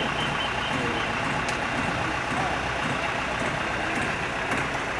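Mobile cranes' diesel engines running steadily during a lift.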